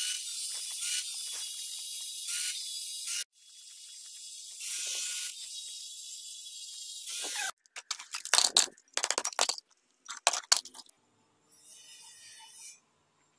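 Cordless angle grinder running against a rendered wall, a steady high hiss that breaks off briefly about three seconds in and stops about seven and a half seconds in. Then several sharp scrapes of a hand tool prying loose plaster off the stone.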